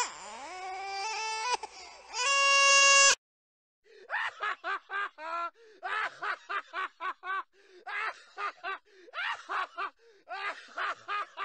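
A short sound effect with gliding and stepping tones that ends in a loud held chord and cuts off sharply about three seconds in. After a brief gap, a man laughs hard in quick, repeated ha-ha bursts.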